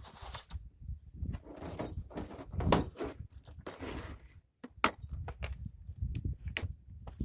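Loose metal tools and hardware clinking and clattering as they are picked through and handled, with rustling in between; the sharpest clinks come a little under 3 seconds and about 5 seconds in.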